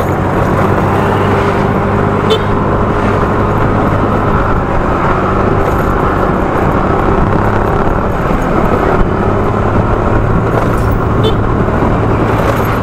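Yamaha Fino scooter's single-cylinder four-stroke engine running steadily under way, with a constant rush of road and wind noise.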